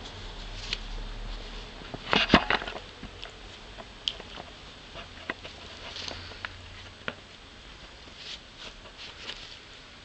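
Rustling, scratching and scattered small clicks of a kitten wrestling with and biting at a hand close to the microphone, with a loud scuffle about two seconds in.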